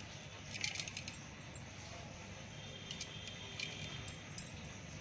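Light metallic clinks and jingles of bangles, in short clusters, as hands work a fist in a steel plate of wet roli paste, over a steady low hum.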